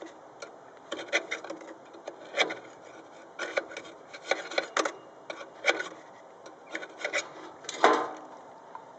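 Irregular clicks, taps and short scrapes of tools and parts being handled during trimmer repair work, with a longer, louder scrape near the end.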